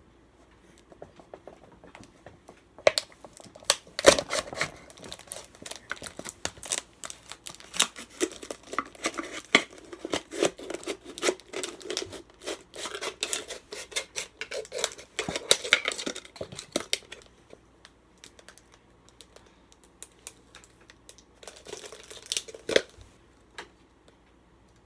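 Thin plastic drink bottle being cut with a folding buck knife: fast runs of sharp crackles and snaps from the plastic, starting about three seconds in and lasting some fourteen seconds, then a shorter run near the end.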